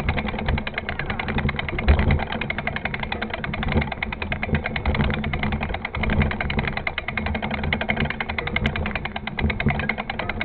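Mountain bike riding over a rough dirt trail: a steady low rumble with fast, continuous rattling.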